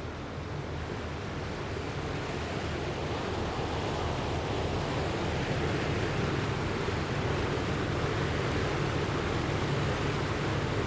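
Rushing floodwater and surf, a steady noise that grows gradually louder as the tsunami surge spreads.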